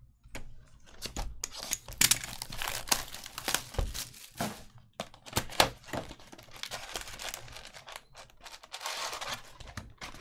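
Panini Prizm basketball retail box being torn open by hand, then its foil-wrapped card packs crinkling and rustling as they are pulled out and stacked, with many sharp clicks and crackles.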